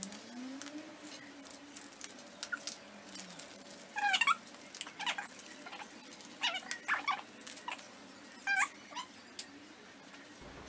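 A knife cutting and fingers peeling the plastic film cover off a frozen dinner's plastic tray: small clicks and several short squeaks of stretched film, the loudest about four seconds in.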